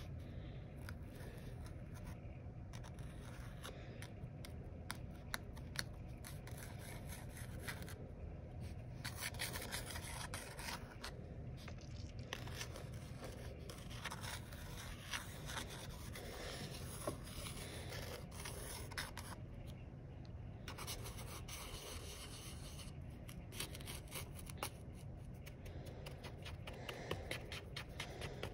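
Pencil scraping through fine sand on a paper plate: a soft, continuous scratching and rubbing dotted with many small ticks.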